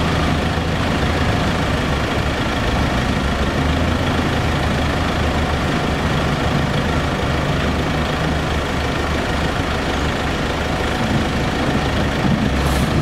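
Kenworth C500 off-road dump truck's diesel engine running steadily at a low idle while the raised dump body lowers.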